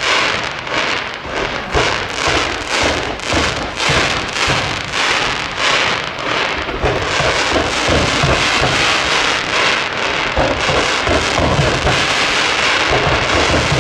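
Fireworks display: a dense run of crackling bangs, several a second, that hiss like heavy rain, with deep booms of bursting shells growing heavier in the second half.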